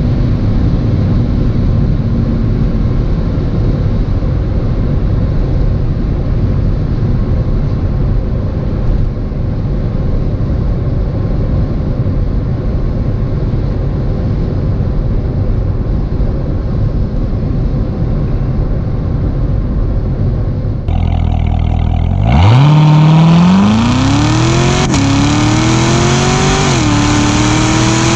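2019 Corvette ZR1's supercharged 6.2-litre V8 on the road: a steady low engine and road rumble for most of the time. Near the end the engine revs up hard under acceleration, its pitch climbing and then dropping back at two upshifts.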